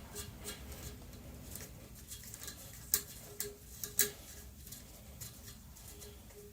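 Light metallic clicks and ticks of a lock nut being run onto the threaded damper rod of a motorcycle front fork by hand, the sharpest clicks about three and four seconds in.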